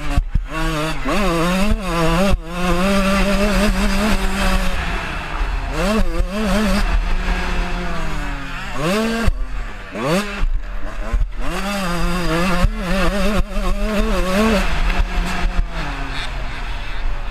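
125cc two-stroke motocross bike engine revving hard under the rider, its pitch climbing and dropping again and again as it accelerates and shifts. A sharp rev-up and drop comes about nine seconds in.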